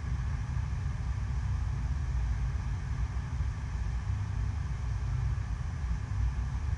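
Steady rush of water pumped over an indoor sheet-wave surf machine, a constant deep rumble with a hiss over it.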